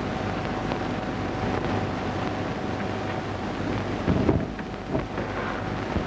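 Steady hiss and hum with faint crackle: the background noise of a 1935 film soundtrack, with a faint steady tone and a few soft thumps about four seconds in.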